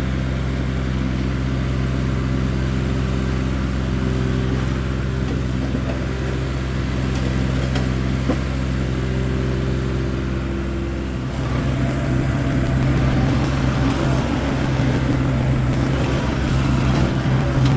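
An engine running steadily. About eleven seconds in it turns rougher and a little louder.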